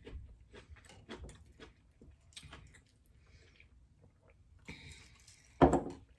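Close-up eating sounds: wet mouth clicks and chewing, with a brief rustle and then one loud thump near the end.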